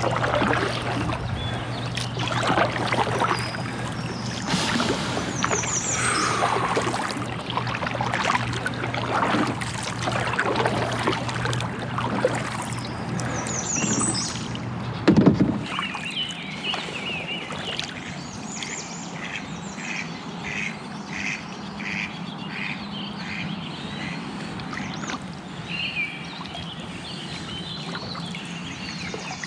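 Kayak paddle strokes splashing in river water, with birds calling. About halfway through there is a sharp knock, and after it the low hum drops away and a run of short high notes, about two a second, is heard.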